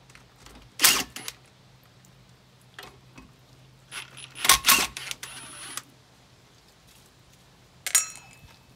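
Sharp metallic clicks and knocks from tools and parts on a Volvo Penta SX sterndrive as its top cover is unbolted with a cordless driver. There are about half a dozen separate knocks: a loud one about a second in, a loud close pair near the middle, and one with a brief metallic ring near the end.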